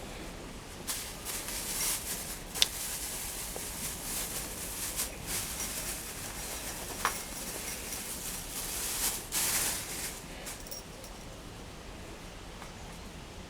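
Rustling and scraping handling noises that come and go, with a few sharp clicks, about three seconds in and again about seven seconds in.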